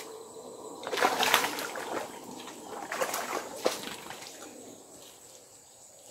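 A hooked fish splashing at the water's surface as it is pulled in: a burst of splashing about a second in, then sharper splashes around three seconds in.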